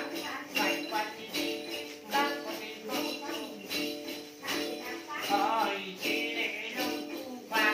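A Tày đàn tính, a long-necked gourd lute, is plucked in a steady pattern while a hand-held cluster of small jingle bells (chùm xóc nhạc) is shaken in time with it. The bells jangle on a regular beat a little more than once a second.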